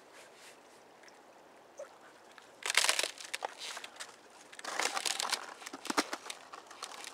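Boots stepping on and breaking thin ice over a frozen creek: two bouts of crunching and cracking, the first about two and a half seconds in, the second a couple of seconds later.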